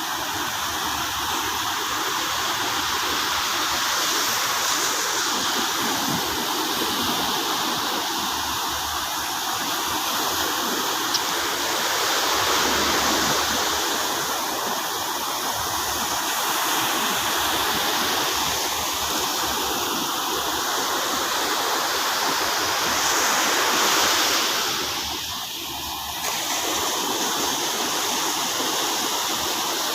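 Steady rushing of sea surf on the shore, swelling and easing every several seconds.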